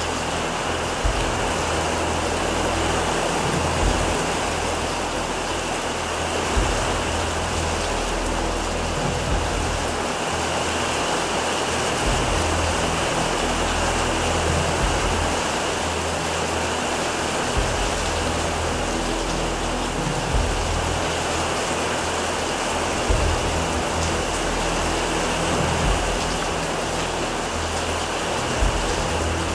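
Heavy rain pouring steadily onto roofs and pavement in a strong storm, with a sharper tap standing out about every three seconds.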